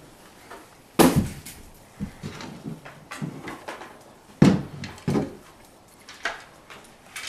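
A series of knocks and bumps indoors, the loudest about a second in and again about four and a half seconds in, with lighter clatter between.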